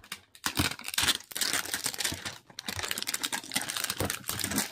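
Clear plastic shrink wrap crinkling and tearing as it is pulled off a cardboard toy box, an irregular crackling with a few brief pauses.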